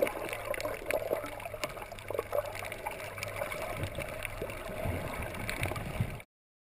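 Water gurgling and sloshing around a snorkeler's camera, with scattered small clicks and a low steady hum underneath; the sound cuts off abruptly near the end.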